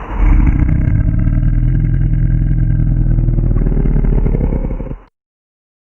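Designed monster growl made from a cow-like sample that has been pitched down, given a fast tremolo, compressed, reversed and sped up 1.3 times. It is a low, rough growl held for about five seconds, rising slightly near the end, then cut off suddenly.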